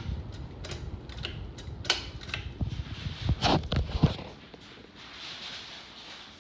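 A 52-inch Concord ceiling fan running on high, a steady airy whoosh. Irregular clicks and rattles and a low rumble run through the first four seconds, then stop.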